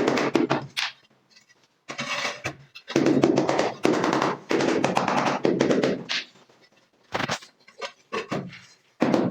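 Bursts of rapid tapping on ceramic floor tile, several strings of quick strikes with short pauses between them.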